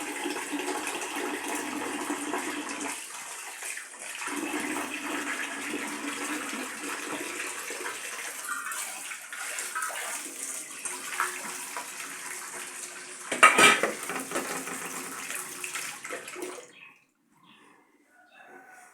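Water running steadily into the emptied ugali pot to soak it for washing, stopping suddenly near the end. A single loud clatter of the pot about two-thirds of the way through.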